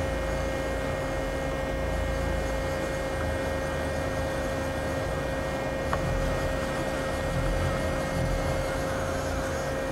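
Steady machine hum from a Doosan Lynx CNC turning center standing powered up, with a constant mid-pitched tone over a low rumble. There is one light click about six seconds in.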